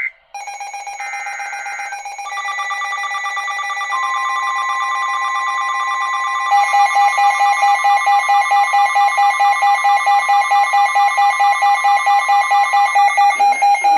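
Emergency Alert System alert tones. A brief burst of data warble sounds about a second in, then several steady alert tones layer on top of one another. About six and a half seconds in they are joined by a louder tone pulsing about four times a second, which stops just before the end.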